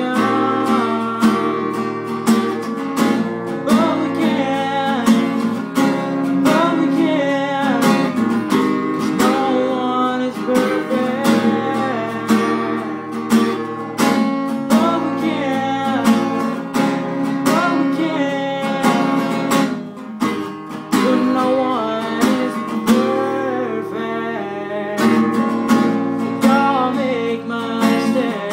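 Acoustic guitar strummed in a steady rhythm, with a voice singing a wavering melody over it.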